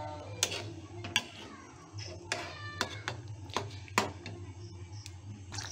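Spatula repeatedly knocking and scraping against a metal kadai while chicken curry is stirred, about ten sharp clacks, some briefly ringing, over a steady low hum.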